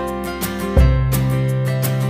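Background music with sustained chords and a regular beat; a deeper bass note comes in just under a second in.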